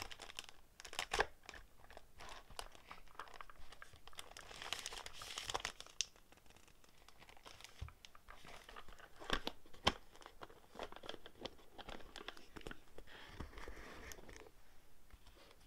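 Paper and clear plastic packets rustling and crinkling as hands sift through an accordion file organizer full of journaling papers, with sharp crisp snaps, the loudest about a second in and again around nine to ten seconds in.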